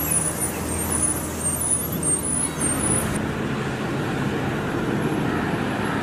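Bus engine running steadily amid traffic noise. Faint high chirps sound during the first three seconds.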